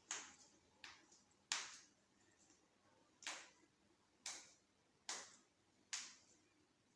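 A series of seven sharp, short cracking pops about a second apart, with near silence between them: joints cracking during a self-adjustment.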